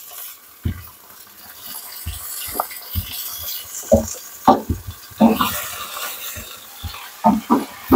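Raw chicken pieces going into hot oil and browned onions in an aluminium pot, sizzling, with a dozen or so irregular soft thuds as pieces land. A long wooden spoon then stirs and knocks against the pot.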